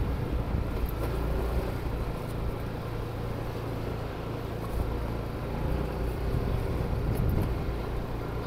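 A car driving slowly along a block-paved street: a steady low engine and tyre rumble.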